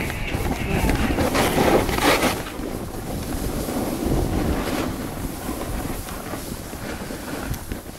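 Wind rushing over the microphone and the hiss of a snowboard sliding over snow during a run, with louder rushes about one and a half to two seconds in.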